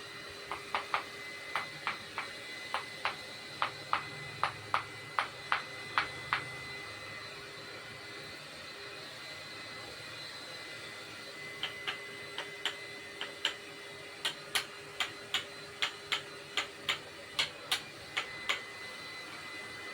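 Sharp clicks or taps repeating two to three times a second, in a run of about six seconds and then, after a pause of about five seconds, another run of about seven seconds, over a steady machine hum.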